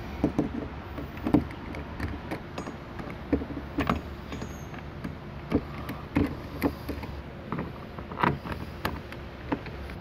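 Phillips screwdriver driving the mounting screws of an RV Lock keyless door handle into an RV entry door: irregular small clicks and knocks of the bit and the handle body, over a steady low hum.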